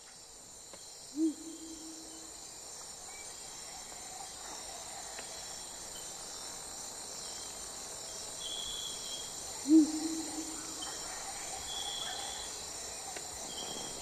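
Steady chirring of crickets and other insects, with a short low hooting call, rising then held briefly, heard twice about eight seconds apart, and a few faint high whistled notes in the second half.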